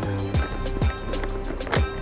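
Background music with a steady beat: deep bass notes that slide down in pitch, over quick high ticks and held tones.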